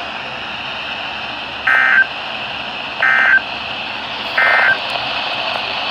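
Emergency Alert System end-of-message signal: three short, buzzy digital data bursts about 1.3 seconds apart, closing the broadcast tornado warning, over a steady hiss.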